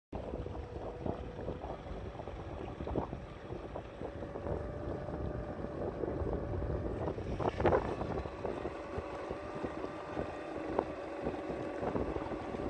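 Canoe under way powered by a home-built direct-drive electric outboard: water splashing and slapping at the hull, with wind on the microphone and a steady tone from the running motor. A few sharper slaps come through, the loudest about halfway.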